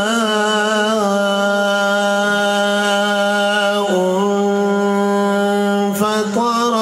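A man reciting the Quran in melodic tajweed style, holding one long drawn-out note that wavers slightly at first and dips a little in pitch about four seconds in. Near the end it breaks off briefly, then resumes with quicker ornaments.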